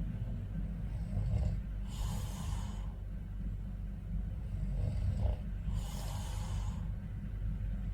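A man snoring in his sleep: a short rasping snore followed by a hissing rush of breath, twice, about four seconds apart, over a steady low hum.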